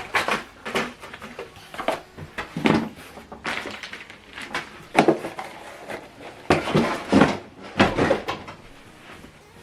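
Box and packaging being handled while a portable speaker is unpacked: irregular scrapes, rustles and knocks, the loudest about 5 and 7 seconds in.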